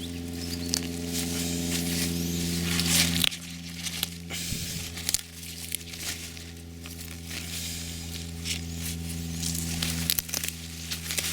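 A steady low hum with overtones, stepping slightly down in level about three seconds in, under scattered crinkling and rustling.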